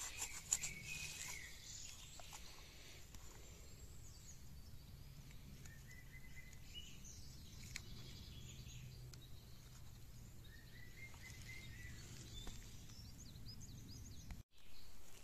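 Faint woodland ambience: rustling and small clicks near the start as a morel is cut free of the moss with a pocket knife and picked up, then a few short bird chirps later on over a steady low rumble.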